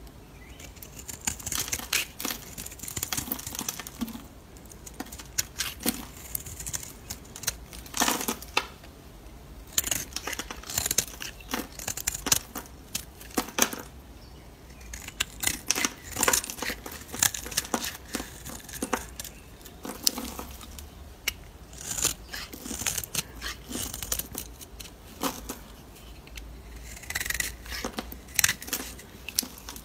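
Snap-off utility knife blade shaving a hard bar of soap held in the hand: crisp scraping cuts in runs of quick strokes with short pauses between them.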